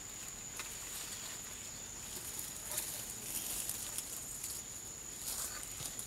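Leaves and brush rustling, with a few light clicks and twig snaps, as a person pushes through dense jungle undergrowth, over a steady high-pitched insect drone.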